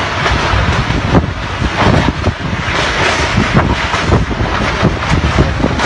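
Tornado winds blasting over the microphone: a loud, continuous rush broken by irregular gusty thumps.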